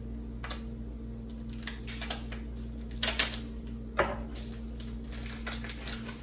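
Scattered clicks, taps and crinkles of a plastic chorizo package being opened and handled at the counter, the sharpest about three and four seconds in, over a steady low hum.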